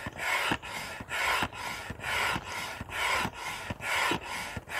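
Upright hand pump inflating an inflatable kayak: rhythmic whooshes of air, about two a second, as the handle is worked up and down.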